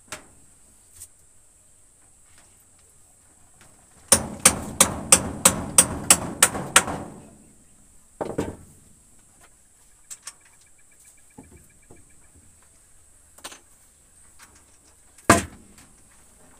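Hammer striking a nail into wood: a quick run of about ten blows, about three a second, then a single knock a little later and another near the end.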